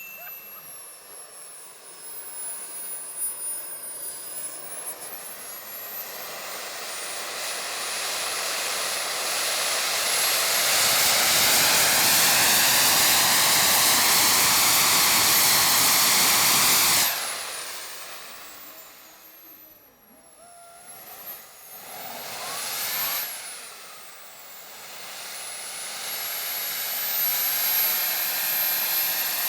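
Twin Jet AMT Olympus model turbine jet engines, together about 110 lb of thrust, spooling up with a rising high-pitched whine and rush to near full power. They are throttled back sharply around two-thirds of the way through, run up briefly again, then climb once more toward the end.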